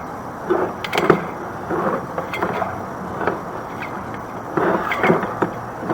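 A string of irregular knocks and rattles, some sharp and some duller, over a low steady hum.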